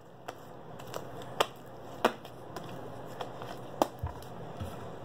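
Sticky homemade glue slime being stretched and kneaded by hand, giving a run of sharp clicks and pops, three of them loud, with a couple of dull knocks on the table near the end.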